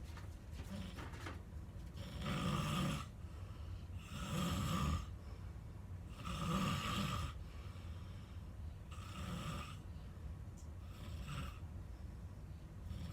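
A sleeping person snoring in a slow, regular rhythm, one snore about every two seconds, five in all, the last two weaker.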